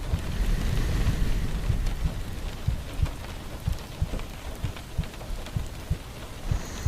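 Steady rain falling, with a low rumble of thunder swelling over the first couple of seconds and scattered short low knocks.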